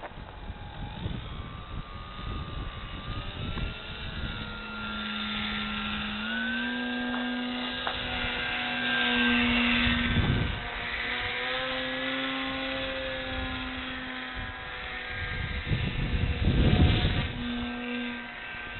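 Electric motor and propeller of a foam RC airplane running in aerobatic flight, its tone stepping and gliding up and down with the throttle. Low gusts of wind noise buffet the microphone, strongest near the end.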